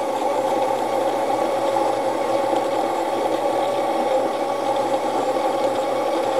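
Baratza Encore ESP burr grinder running steadily: its slow 550 RPM DC motor turning 40 mm steel conical burrs as they grind coffee beans into the dosing cup, a constant whir.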